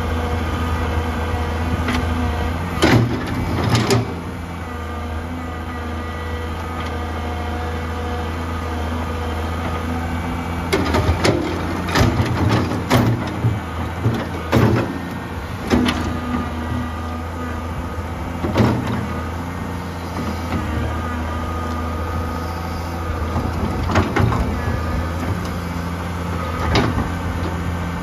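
Diesel engine of a 1987 Komatsu PC200-3 excavator running steadily while it digs, with sharp clanks and knocks from the bucket and boom working, several close together in the middle.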